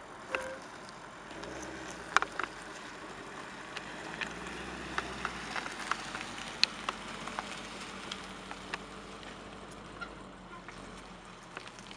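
Audi RS7 Performance's twin-turbo 4.0-litre V8 running gently as the car rolls slowly past on wet tarmac, a steady low hum with scattered sharp ticks and pops over it.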